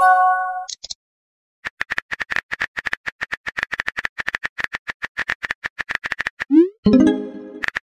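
Texting-app sound effects: a short pitched tone at the start, then rapid keyboard typing clicks for about five seconds as a message is typed. Near the end comes a rising swoosh as the message is sent, followed by a brief chime.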